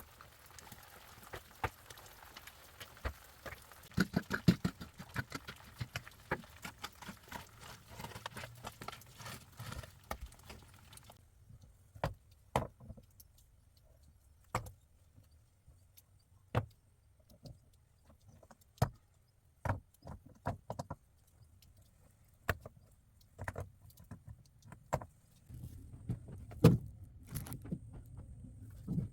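Scattered sharp clicks and knocks, as of things being handled or worked by hand. They come thick over a faint hiss for the first ten seconds or so, then the hiss stops abruptly and single knocks follow every second or two, with a low rumbling noise near the end.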